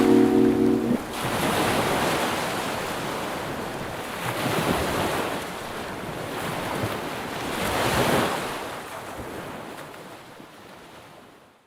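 Sea waves washing onto a beach, swelling and falling back about every three seconds, with wind buffeting the microphone. The last notes of music stop about a second in, and the sound fades out near the end.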